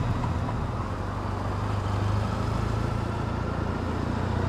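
Triumph Bonneville T100's parallel-twin engine running steadily at cruising speed under way, with wind and road noise over it.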